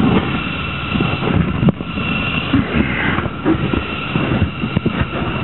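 Rubbing, scraping and knocking of rubber and steel as the flap and inner tube are worked out of a split-ring military truck tire, with a steady faint high hum underneath.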